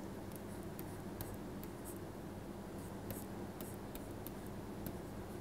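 Faint scratches and light taps of a stylus writing on a tablet screen, over a low steady hum.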